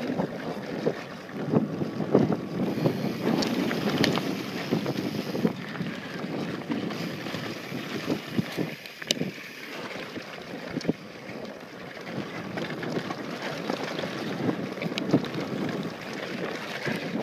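Mountain bike descending fast on a dry dirt and rock trail: tyres rushing over the dirt, with frequent knocks and rattles from the bike over bumps, and wind buffeting the microphone.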